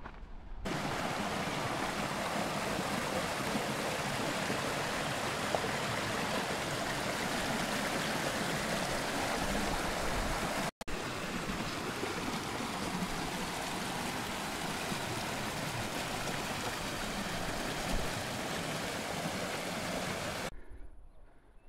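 Creek water rushing steadily. The sound starts abruptly, drops out for an instant about halfway through, and stops abruptly near the end.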